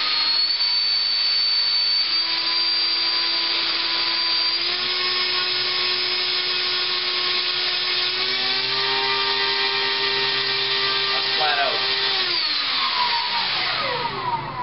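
Park 450 brushless outrunner electric motor spinning a 9x7 three-blade propeller on a test stand: a high whine with prop hum that steps up in pitch a few times as the throttle goes up to full, holds steady, then slides down about twelve seconds in as the motor is throttled back and spools down.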